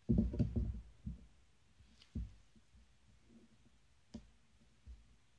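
Soft knocks and rubbing of hands moving hexagonal leather panels on a tabletop for about the first second. Then a few single light ticks of a felt-tip marker dotting stitch-hole positions on the leather.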